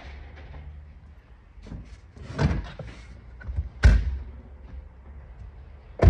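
Knocks and thuds from a pickup truck's front seat being shoved forward in the cab: one knock about two and a half seconds in, the loudest thud about four seconds in, and a sharp knock near the end.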